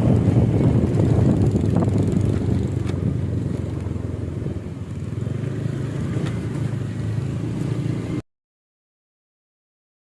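Motorcycle engine running while riding, with steady road and wind noise. The sound cuts off abruptly about eight seconds in, leaving two seconds of dead silence.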